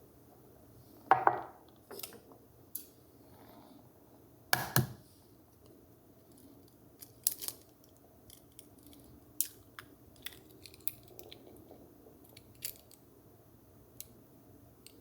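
Kitchen utensils and dishes being handled: scattered clinks and knocks, the loudest about a second in and again near the middle, with lighter taps after.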